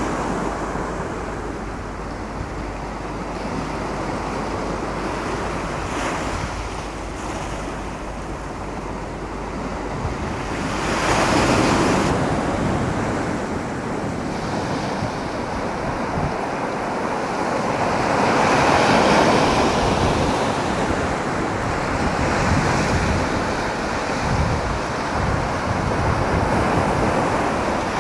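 Sea waves breaking and washing up a sand-and-shingle beach, swelling louder twice, about a third of the way in and again past the middle. Wind rumbles on the microphone through the first part.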